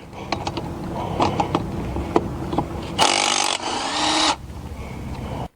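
Avid Power 20V brushless cordless impact wrench running in a loud burst about three seconds in, lasting over a second, after a few scattered clicks and knocks.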